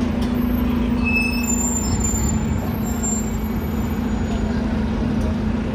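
Bus engine running with a steady low rumble and hum, and a few brief high-pitched squeals between about one and three seconds in.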